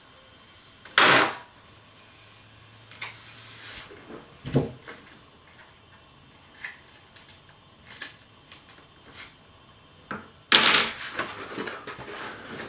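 Hands working tape onto a foam RC-plane wing: a short loud scrape about a second in, scattered clicks and taps, then loud rustling and crinkling as the foam wing is picked up and handled near the end.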